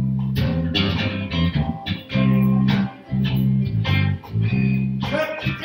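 Church band playing instrumental music: an electric bass guitar holding long low notes under plucked electric guitar.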